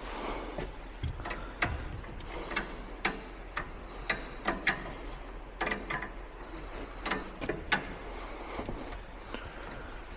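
Irregular sharp clicks and light metallic taps, a few a second, over a faint background.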